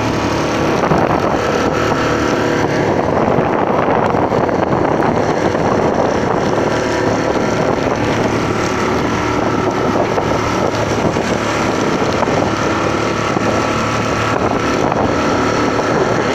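Small open motorboat's engine running steadily under way, with wind noise on the microphone.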